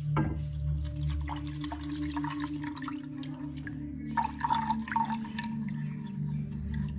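Water pouring and splashing into a saucepan of sugar, with a steady low hum underneath.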